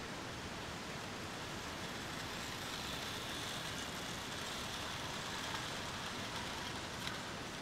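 Hornby Dublo three-rail model train running past, a steady whirring of its electric motor and wheels on the track that grows louder about two and a half seconds in. A sharp click near the end.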